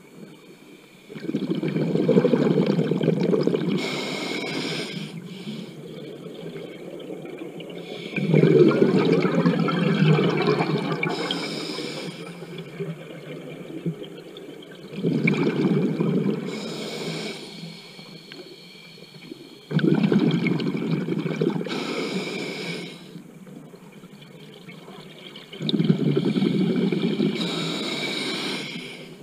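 Scuba diver breathing through a regulator underwater: five exhalations, each a sudden burst of bubbling that lasts about three seconds, with quieter gaps between them.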